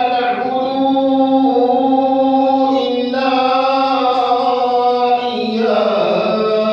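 A man chanting Quranic recitation in a Tarawih prayer, holding long, drawn-out melodic notes that change pitch a few times.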